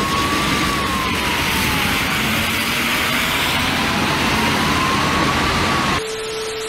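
Police car siren wailing, its pitch rising and falling slowly, over wet street and traffic noise. About six seconds in it cuts off to a short steady tone.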